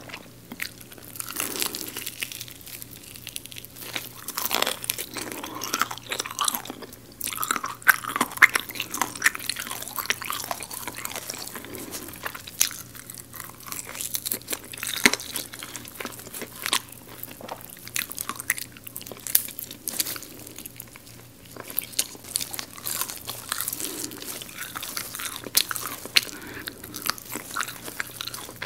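Close-up biting and chewing of crispy garlic fried chicken: a dense, irregular run of sharp crunches as the crisp coating breaks, with softer chewing between bites.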